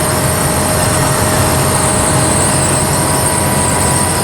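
VW Voyage 1.8 ethanol four-cylinder engine pulling steadily in fourth gear up a climb through an open exhaust, with a steady whine from the gearbox over the engine note.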